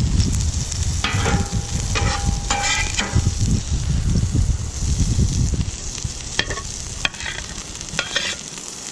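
Potatoes sizzling on a hot steel flat-top griddle while a metal spatula scrapes across the griddle top several times, ringing briefly. Near the end come a few sharp clicks of the spatula against the griddle, over a low rumble.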